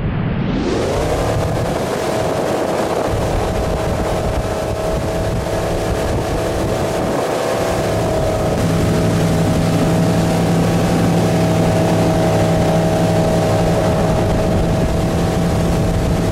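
Tow boat's engine running at speed, its pitch rising during the first couple of seconds and then holding steady. It gets a little louder and deeper about eight seconds in, over a steady hiss of wind and spraying water.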